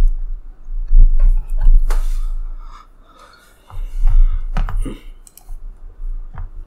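Handling noise on the recording microphone: a loud low rumble with scattered clicks and knocks, in two bouts, then a few lighter clicks near the end.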